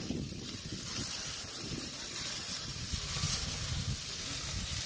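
Burger patties and chicken sizzling on the grate over hot charcoal: a steady hiss over a low rumble.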